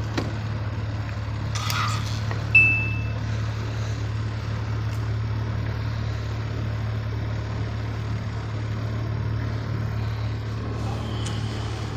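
Boat engine idling with a steady low hum, joined by a brief noise about two seconds in and a short high-pitched tone just after.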